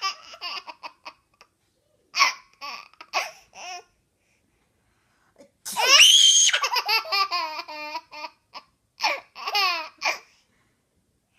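Baby laughing in bursts. About halfway through comes a loud, high-pitched squeal of laughter that breaks into a run of falling 'ha' syllables, and there are more short giggles near the end. The laughter is at fake sneezes.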